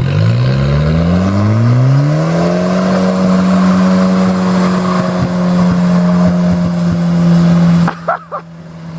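Volvo drift car's engine doing a burnout on a wet street. Revs climb for about two and a half seconds and are then held high and steady over the rush of spinning tyres, until the engine comes off the throttle near the end.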